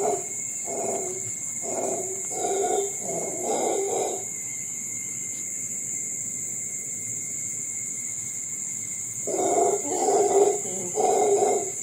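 Howler monkeys calling in a run of short, rhythmic pulses, roughly one a second. The calls stop for about five seconds in the middle, leaving a steady high hiss, then start again about nine seconds in.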